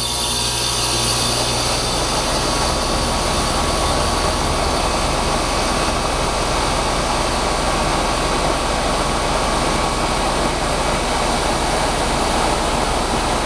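Outdoor unit of a 2005 Rheem Classic Series heat pump (RPKB-036JAZ) running in heat mode just after start-up: compressor and condenser fan make a steady running noise with a low hum, and a faint high tone fades out about ten seconds in.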